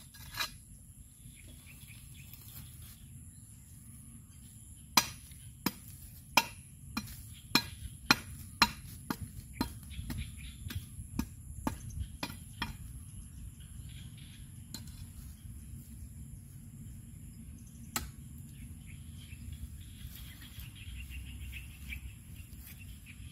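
A machete chopping into a sawn wooden log: a run of about fifteen sharp knocks, roughly two a second, from about five seconds in to about twelve seconds, then one more knock a few seconds later. A steady high insect hum runs underneath.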